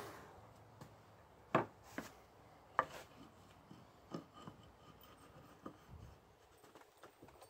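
Light, irregular knocks and scrapes of wooden boards being handled on a workbench as a board is set into a slot in a vise chop, about half a dozen taps with the loudest about a second and a half in.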